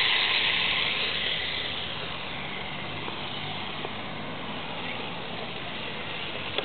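A 1/10-scale RC drift car driving away on asphalt, its motor and tyre hiss fading over the first two seconds and then running on faintly in the distance.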